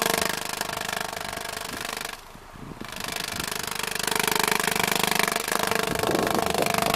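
A sheet of paper held against a car's idling tailpipe flapping rapidly in and out with the exhaust pulses, a fast, steady rattle that dips briefly about two seconds in. The paper being sucked back against the pipe is, in the owner's test, the sign of a probably sticky or stuck-open exhaust valve.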